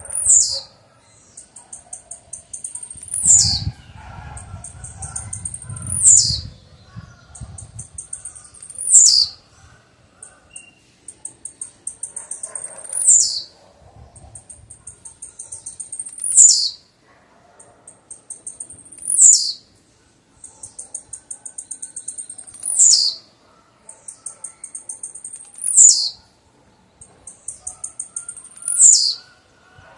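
Blue-black grassquit (tiziu) singing its short song over and over, about once every three seconds: a quick run of high ticks ending in a sharp, very high note that drops steeply in pitch. A low rumble sounds underneath for a few seconds near the start.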